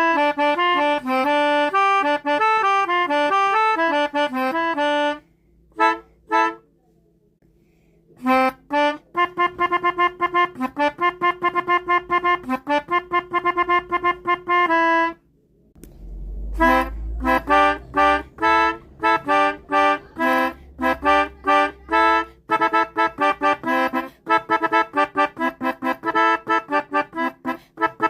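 Basuri telolet horn, a multi-tone musical horn used on Indonesian buses and trucks, playing fast melodies of short notes in phrases with pauses between them. A low rumble runs under the notes for a few seconds in the middle.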